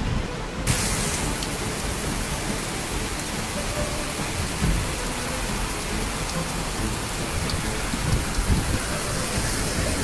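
Heavy rain pouring onto a waterlogged street: a steady hiss that starts abruptly under a second in, with irregular low rumbling beneath it.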